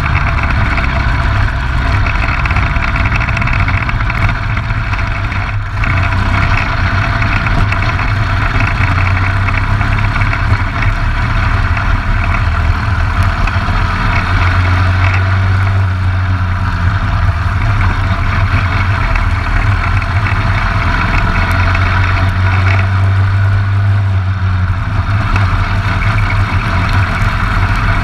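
Briggs & Stratton LO206 single-cylinder four-stroke kart engine running loud and steady as the kart laps the track, with a brief dip about six seconds in.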